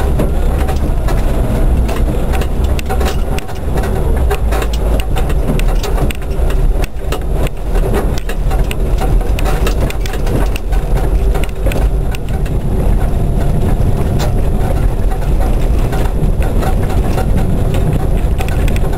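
A car driving over a rough grass and dirt track, heard from inside the cabin: a steady low engine and tyre rumble with frequent knocks and rattles from the bumpy ground.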